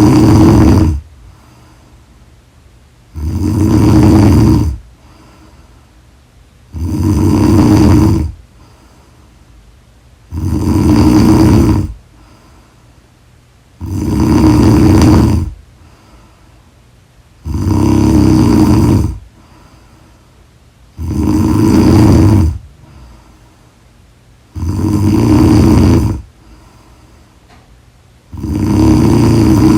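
A woman snoring loudly in deep sleep, one long rattling snore about every three and a half seconds in a steady rhythm.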